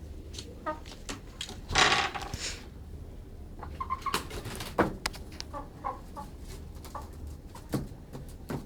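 Domestic chickens clucking in a series of short calls, with a loud harsh burst about two seconds in, over a steady low hum.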